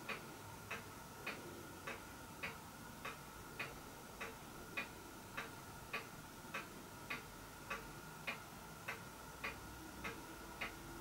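Faint, even ticking, a little under two ticks a second, over a faint steady hum.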